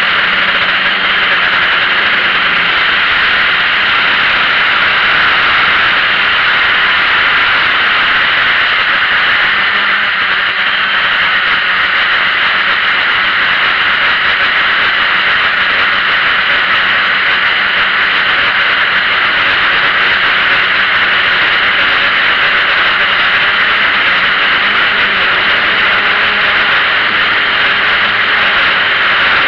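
Steady, loud whirring hiss of a small drone's motors and propellers, heard through its onboard camera's microphone.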